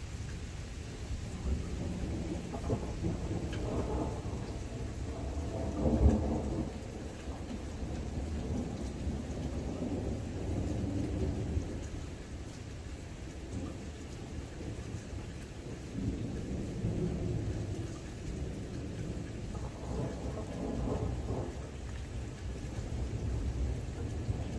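Thunder rumbling over steady rain, with a loud, sudden clap about six seconds in and another long rumble in the second half.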